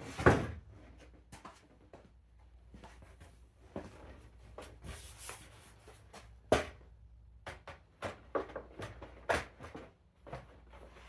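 Irregular clicks, taps and knocks of hands working with parts, with a brief hiss about five seconds in. The loudest knocks come at the very start, about halfway through and again near the end.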